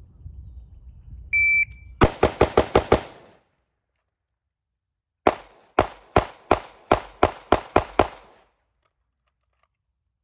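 A shot timer beeps once, then a rifle fires six rapid shots. After a pause of about two seconds, a pistol fires a fast string of about nine shots.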